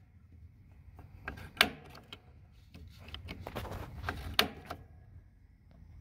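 Piezo igniter of a 3-way RV absorption fridge's propane control clicking as the burner is being lit, with the gas knob held in on high. There are several sharp snaps, the loudest about a second and a half in and again after about four seconds, with lighter clicks and rattling of the control in between.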